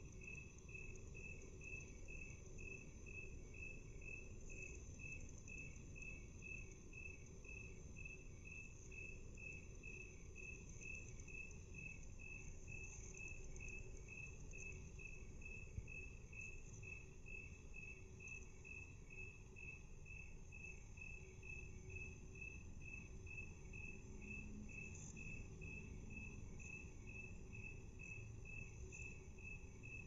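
A cricket chirping, slowed to half speed: even, regular chirps a little over two a second, over a steady high-pitched buzz.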